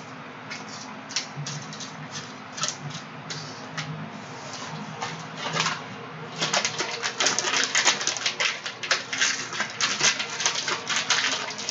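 Foil trading-card pack wrappers crinkling and crackling as they are torn open and handled, sparse at first, then denser and louder about six seconds in.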